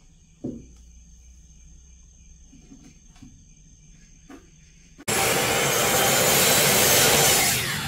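A couple of light knocks of wood on wood, then about five seconds in a Metabo sliding mitre saw starts loud and steady, cutting through a wooden board; near the end the sound drops as the blade begins to wind down.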